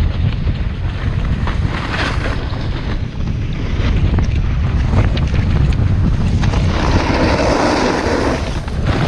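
Wind rumbling on the microphone while snowboarding downhill, with the snowboard sliding on snow. About seven seconds in, a louder rushing hiss lasting about two seconds as the board scrapes across the snow.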